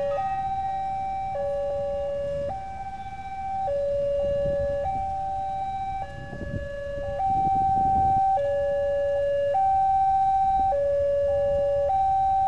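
Railway level-crossing warning alarm: an electronic two-tone signal alternating steadily between a higher and a lower note, each held about a second, over a low background rumble.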